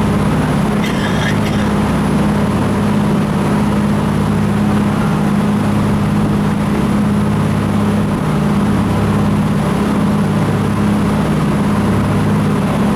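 Jet boat engine running steadily, a loud even drone that holds one pitch throughout. A brief higher-pitched sound cuts in about a second in.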